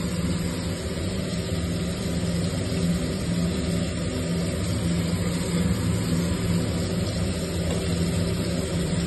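Steady low hum of a running kitchen appliance, under the hiss of boiled egg halves frying in hot mustard oil in the pan.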